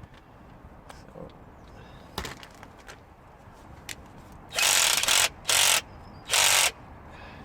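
Hand socket ratchet clicking in three short, loud runs near the end, after a few isolated tool clicks.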